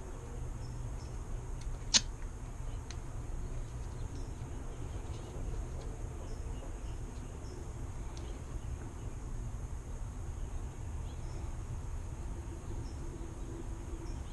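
Steady low hum with light hand work on a plastic Plastigauge packet and strip: one sharp click about two seconds in, then a few faint ticks.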